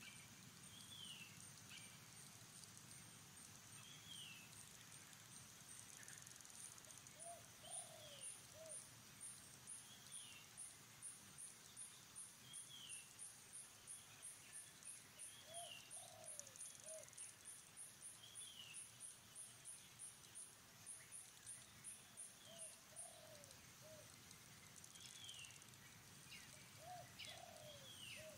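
Faint outdoor ambience with birds calling: a low three-note call repeated every several seconds, and short falling chirps every couple of seconds. Through the middle runs a fast, high-pitched ticking call of about two to three pulses a second, which stops abruptly.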